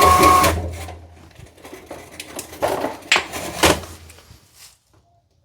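Drill spinning the dryer-vent brush rods with a steady whine, cutting off about half a second in; then a few knocks and clatter as the rods are handled.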